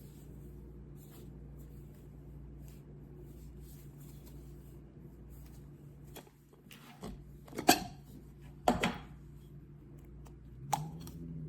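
Steady low hum, with a few sharp knocks and clatters of objects being handled in the second half, the loudest about two-thirds of the way through.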